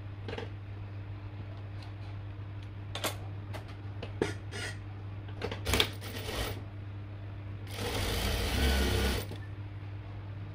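Sewing machine stitching in one short run of about a second and a half near the end, over a steady low motor hum, with a few scattered clicks before it.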